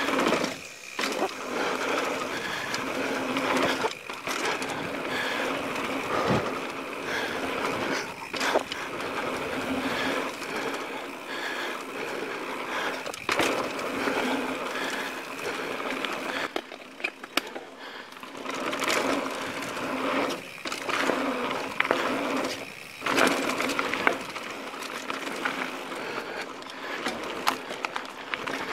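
Mountain bike rolling fast down a dirt and rock singletrack: steady tyre-on-dirt rolling noise and the bike rattling, with sharp knocks as the wheels hit rocks and bumps.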